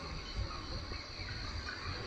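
Countryside outdoor ambience: a steady high-pitched drone with faint scattered chirps over an uneven low rumble.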